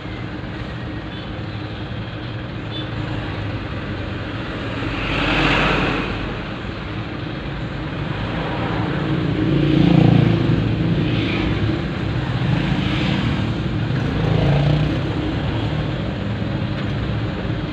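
A loaded truck's diesel engine running and its road noise, heard from inside the cab while it moves slowly in traffic. The sound swells as other vehicles pass close alongside, loudest about five seconds in and around ten seconds in.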